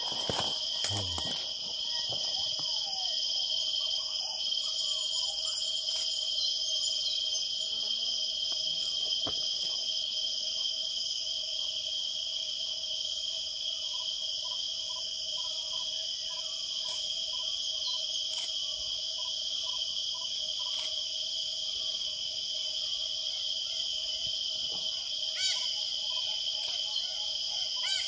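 Steady insect chorus of cicadas or crickets, several continuous high-pitched tones that hold throughout. About halfway through, a bird gives a run of short, evenly spaced repeated notes for several seconds, and there are a couple of soft low knocks at the very start.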